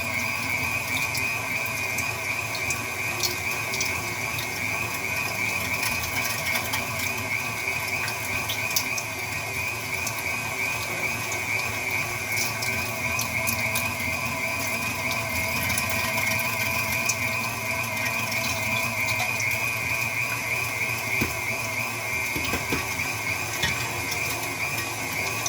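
KitchenAid stand mixer running steadily with a meat grinder attachment fitted, its motor and gears giving a steady high whine as the auger grinds meat scraps.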